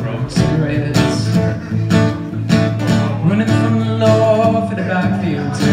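Acoustic guitar strummed in a steady rhythm under a male voice singing a pop song live.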